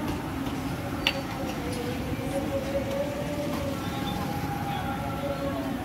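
Steady low rumble of street background noise with faint, indistinct voices and one sharp click about a second in.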